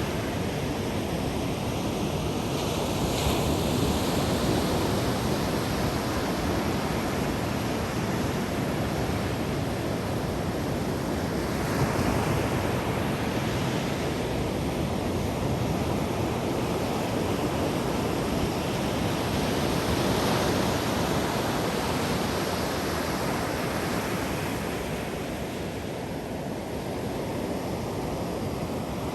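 Ocean waves breaking and washing onto a sandy beach, a steady surf rumble that swells every several seconds, with some wind on the microphone.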